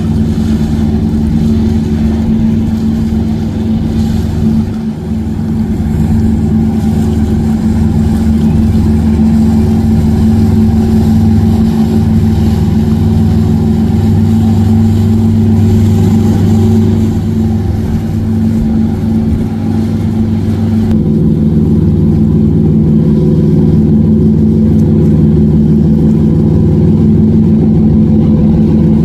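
Motorboat engine running steadily at a low, even speed. About two-thirds of the way through, the engine note abruptly shifts to a slightly different steady pitch.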